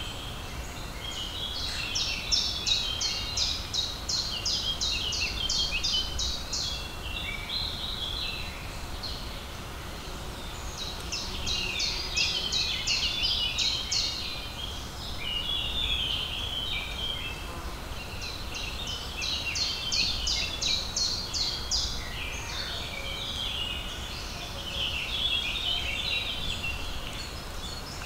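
Songbirds singing: a song phrase of rapid high notes that runs about three seconds, repeated four times, with other, lower bird notes in between, over a faint low background rumble.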